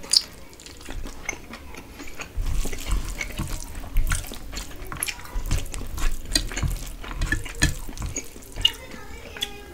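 Close-miked wet eating sounds: fingers squishing rice together with duck curry gravy on a steel plate, and chewing with many small wet clicks and smacks.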